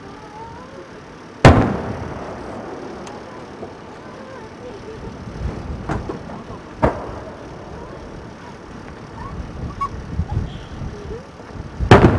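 Large aerial firework shells bursting. A loud bang comes about a second and a half in with an echoing tail, then two smaller reports around six and seven seconds, and another loud bang near the end.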